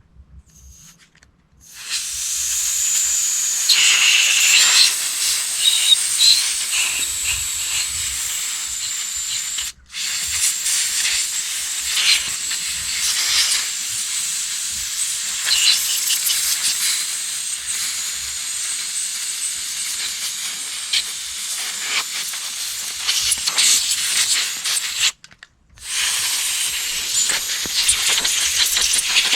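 Pressurised jet hissing in three long bursts, with a high whistling edge and some faint rattles. It breaks off briefly about ten seconds in and again a few seconds before the end.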